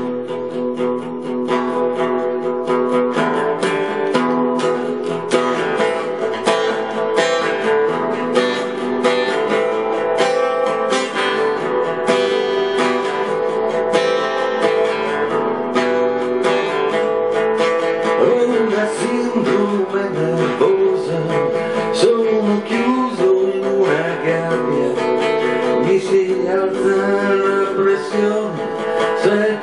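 Acoustic guitar strummed steadily with chords ringing, playing a song's opening.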